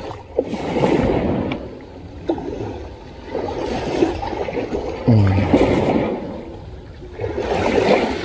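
Small waves washing onto a muddy shore, the noise swelling and fading every few seconds, with a few light clicks. A brief low voiced hum comes about five seconds in.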